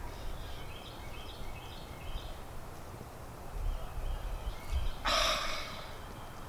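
Birds chirping a few short rising calls, over a low outdoor rumble. About five seconds in comes a short, loud hiss lasting about half a second.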